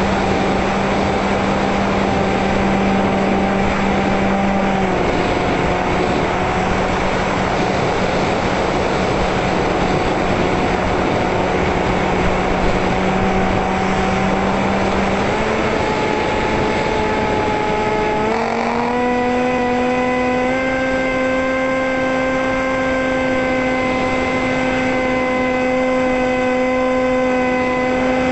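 Electric motor and pusher propeller of a Multiplex EasyStar RC plane whining steadily, heard from on board with air rushing past. The pitch dips slightly about five seconds in, then steps up twice, around fifteen and eighteen seconds.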